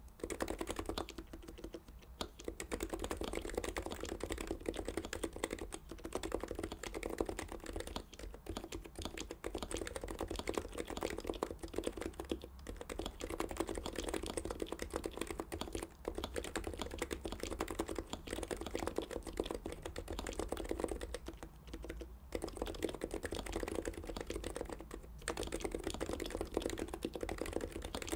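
Fast, steady two-handed typing on a Norbauer Heavy-9 Topre keyboard fitted with Deskey sliders, BKE-style rubber domes and silencing rings. It is a dense run of low-pitched key clacks, broken by a few brief pauses.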